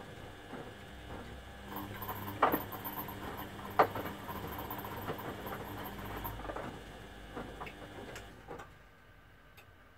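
Front-loading washing machines tumbling a wet delicate wash: water sloshing and laundry flopping in the drums, with light irregular clicks and two sharper knocks a few seconds in. The sound falls away a little before the end.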